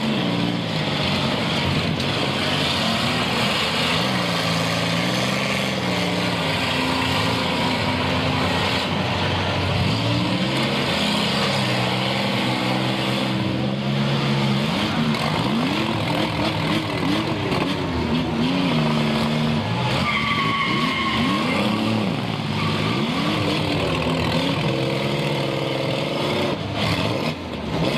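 Several demolition derby cars' engines revving up and down as they drive and ram one another, over a steady din. A short high squeal comes about twenty seconds in.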